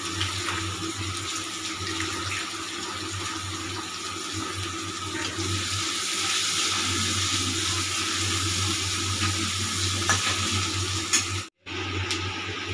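Sliced onion sizzling steadily as it fries in hot oil in a steel kadai, stirred now and then with a spatula. The sound cuts out for a moment near the end.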